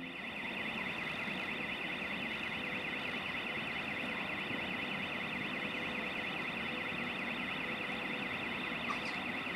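A steady high warbling tone, rising and falling several times a second like an alarm, over a low even haze of railway-station noise, with a faint steady hum beneath and one short tick near the end.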